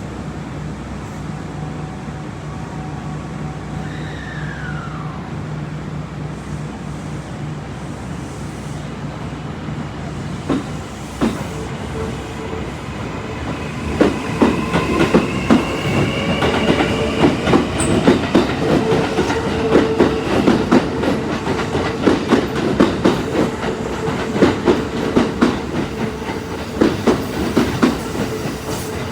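Kintetsu train passing at a level crossing: a steady hum at first, then from about halfway through the wheels clack rapidly over rail joints, with a high wheel squeal over the clacking.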